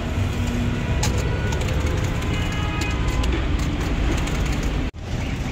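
Steady street traffic rumble mixed with the hiss of fries sizzling in a deep fryer, with a few light metal clicks from the wire skimmer against the fryer. The sound drops out for an instant near the end.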